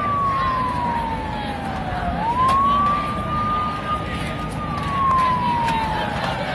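A siren wailing in long slow cycles: a single tone slides down over about two seconds, sweeps quickly back up, holds, then slides down again. Underneath is the noise of a large crowd of marchers.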